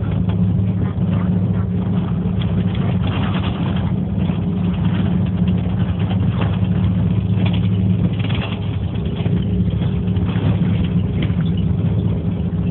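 A running engine's steady low drone.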